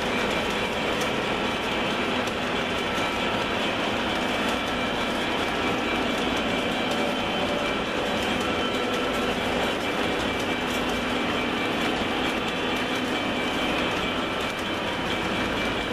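O scale model train's double-stack container well cars rolling past on metal track: a steady rolling rumble with many faint ticks and a thin steady high whine.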